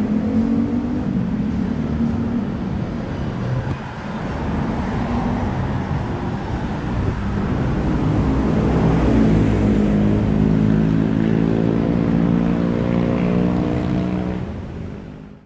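Road traffic: motor vehicle engines running close by over a steady rumble, with one heavy engine's hum strongest in the second half, fading out near the end.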